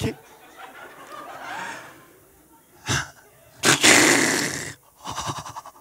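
A man's breathy vocal noises into a close headset microphone: a short sharp one about three seconds in, then a louder one of about a second, followed by a few brief choppy mouth sounds.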